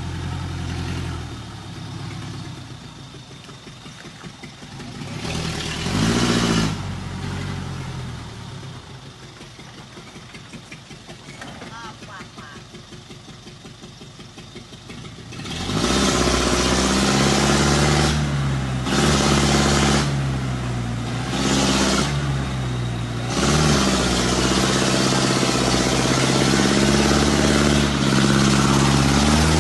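Engine of a grandong oil palm haulage truck idling, revved once about six seconds in, then from about halfway running much louder, with its pitch dipping and rising several times as it is revved.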